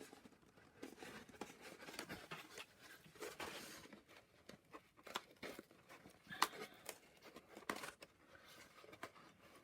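Paper craft pieces rustling and crinkling as they are handled and their tabs pushed into place, with several sharp clicks, the loudest about six and a half seconds in.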